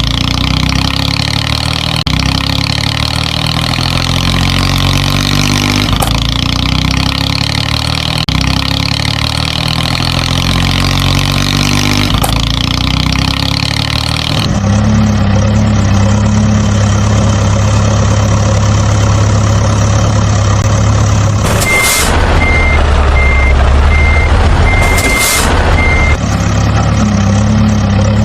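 Truck engine sound, first a pattern repeating about every six seconds, then a steady hum. For a few seconds a reversing beeper sounds about twice a second.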